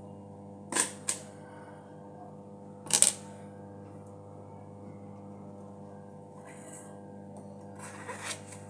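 A knife peeling a round green vegetable by hand: sharp knife clicks and scrapes, two about a second in, the loudest near three seconds, and a rasping cluster near the end, over a steady low hum.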